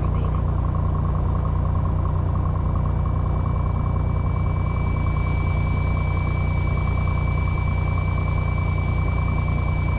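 Cessna 182's six-cylinder piston engine and propeller running steadily at low power on the ground before the takeoff roll. A faint, thin, high, steady whine fades in partway through.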